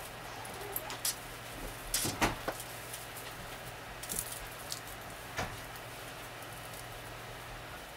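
Artificial Christmas tree being taken apart and handled: scattered short rustles and plastic-and-metal clacks as branch sections are pulled and moved, the loudest cluster about two seconds in.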